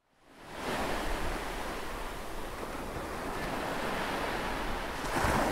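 Ocean surf washing, a steady rushing that fades in, swells slightly near the end and begins to fade out.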